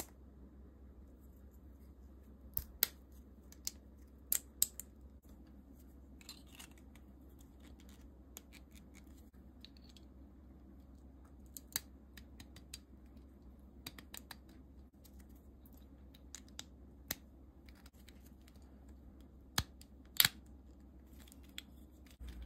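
Small 3D-printed plastic figure parts clicking and snapping as they are handled and fitted together: scattered sharp clicks, with clusters of louder snaps a few seconds in and again near the end, where the loudest snap falls.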